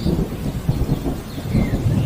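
Thunder rumbling and crackling steadily over falling rain, with a few faint short bird chirps above it, one of them falling in pitch near the end.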